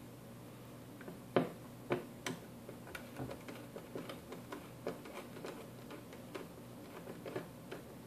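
Small screwdriver turning a screw out of a mini PC's motherboard: a few sharp clicks, the loudest about a second and a half in, as the tip goes onto the screw, then light irregular ticks, two or three a second, as it is turned.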